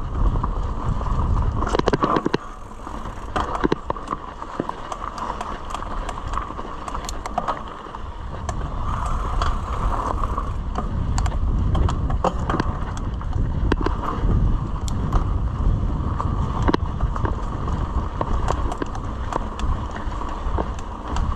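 Mountain bike being ridden along a dirt trail: tyres running over the ground, with frequent sharp clicks and rattles from the bike and a steady low rumble of wind on the microphone.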